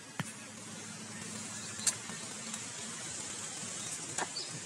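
Steady outdoor background noise with three short, sharp clicks spaced a second or two apart.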